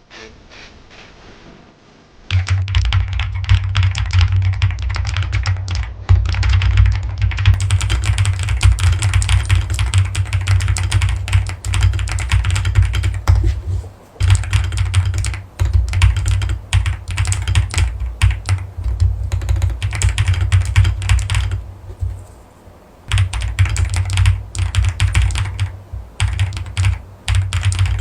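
Rapid typing on a mechanical keyboard: dense clacking keystrokes with a deep thud under each press. The typing starts a couple of seconds in and pauses briefly about halfway through and again about three quarters of the way through.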